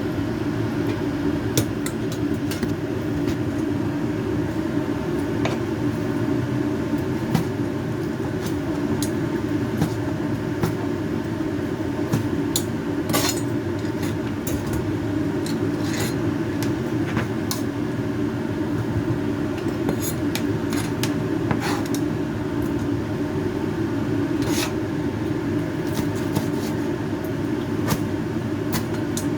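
Cooking in a kitchen: a steady low rumble under scattered short clicks and clinks of utensils against a pan.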